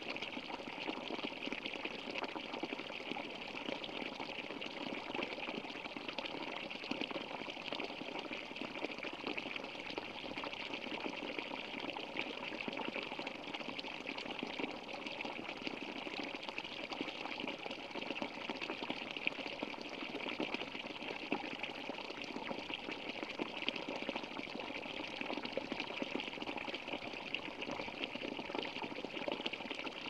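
Spring water pouring in a thin stream from a wooden spout and splashing steadily into a shallow, rocky brook.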